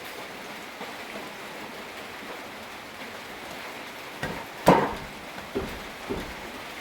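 Steady rain, with a few knocks about two-thirds of the way through, one much louder than the rest.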